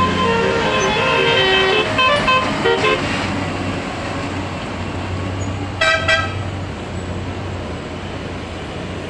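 A bus's 'telolet' multi-tone musical air horn plays a quick tune of changing notes for about three seconds, then gives one short blast about six seconds in. Under it runs the bus engine's low steady hum.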